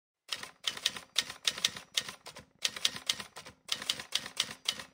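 Typewriter sound effect: a quick run of key clacks, about four or five a second, in short bursts with brief gaps.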